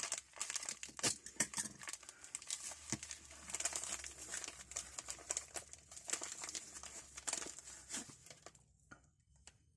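Packaging wrap being crumpled and crinkled by hand as tools are unwrapped, a dense run of crackling that stops about nine seconds in.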